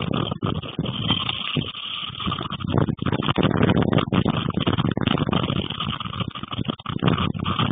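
Strong, gusty storm wind buffeting the microphone: a loud rumbling rush that surges and eases unevenly, with rapid crackle throughout and a stronger gust near the middle.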